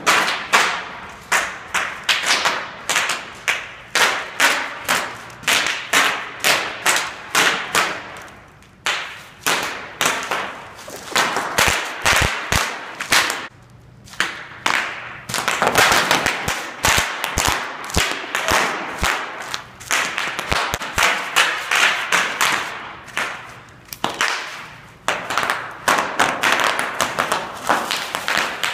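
Sheets of bubble wrap popping under a person's weight: dense rapid runs of sharp pops, many a second, broken by a few short pauses. A few deep thuds come in near the middle.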